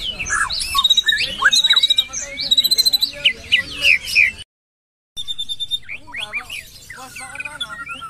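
Caged white-rumped shama singing a fast, varied song of sweeping whistles and rapid trills of repeated notes. The sound cuts out completely for under a second about halfway through.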